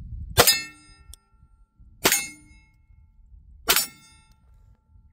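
Three shots from a Beretta 1301 Tactical 12-gauge semi-automatic shotgun, about a second and a half apart. Each blast is followed by a brief metallic ring.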